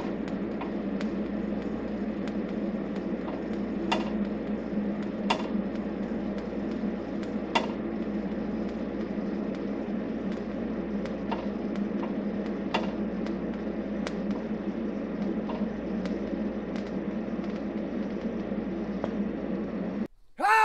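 TIG welding arc on stainless steel, powered by an Eastwood TIG200, running with a steady hum and hiss and scattered faint ticks. The arc cuts off suddenly near the end. This is a pass deliberately run too slow and with too little heat, which burns the stainless.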